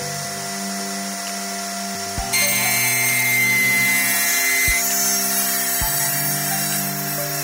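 Sliding table saw running, its blade biting into a melamine panel about two seconds in and cutting steadily on, a loud dense hiss over the motor's steady tone. Music plays underneath with a few low thumps.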